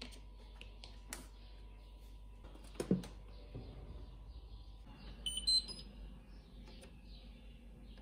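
Scattered small clicks and knocks of household handling, the loudest about three seconds in, and a short run of high electronic beeps at stepping pitches a little past the middle, like a kitchen appliance's button chime.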